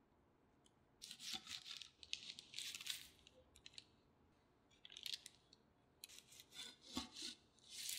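Serrated cake knife sawing through soft sponge cake: several runs of short, scratchy rasping strokes, starting about a second in, with a soft knock near the end.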